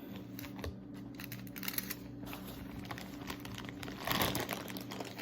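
Packaging crinkling and rustling as items are handled and sorted through, in scattered short bits with a louder rustle about four seconds in. A faint steady hum lies underneath.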